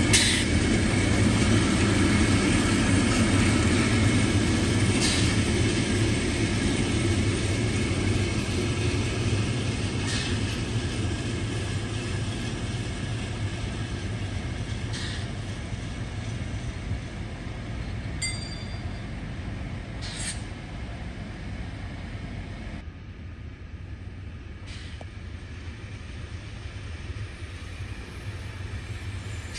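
Track-construction work train rolling away through the yard, its rumble slowly fading, with a sharp click about every five seconds.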